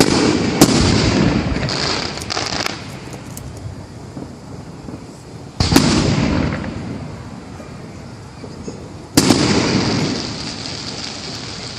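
Aerial fireworks shells bursting: three big booms, about five and three and a half seconds apart, each rolling away in a long echo. The first is a double crack, and crackling follows the first and last.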